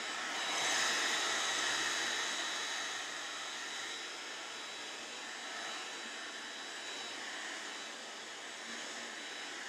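Handheld hair dryer blowing steadily, with a thin high whine running through the airflow; a little louder in the first couple of seconds.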